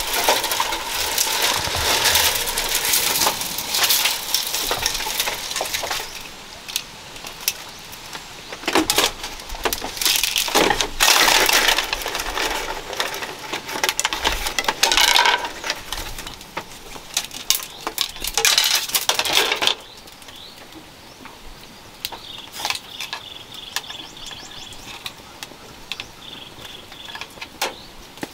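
Thin bamboo strips rustling, scraping and clicking against one another as they are woven by hand into a hat. The sound comes in dense, loud spells for about the first twenty seconds, then thins to scattered light clicks.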